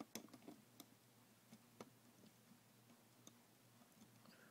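Near silence with a few faint, scattered clicks of small plastic toy-figure parts being handled and posed, over a faint steady low hum.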